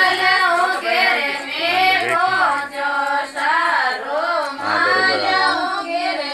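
A song with a high singing voice carrying an ornamented melody that wavers in pitch, over a low instrumental backing.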